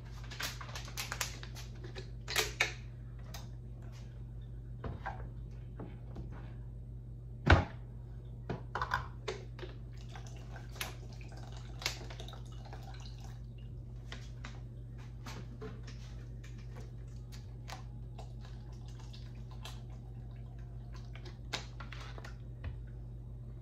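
Scattered clicks and knocks of kitchen containers being handled on a countertop, the blender jar lifted off its base and a plastic water bottle picked up, with one sharp knock about seven and a half seconds in. A steady low hum runs underneath.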